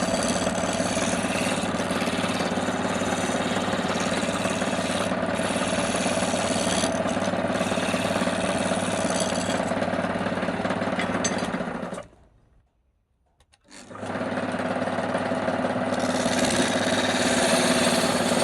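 Wood lathe running steadily with a hum and a rough hiss. It cuts out abruptly for about two seconds a little past the middle, then starts again.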